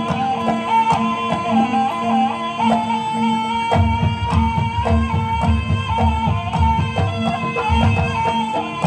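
Javanese barongan accompaniment music: a wavering melodic lead line over steady held tones, with deep drum strokes coming in strongly about four seconds in and beating on quickly.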